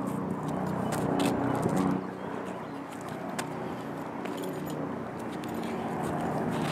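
A steady low engine hum with scattered faint clicks.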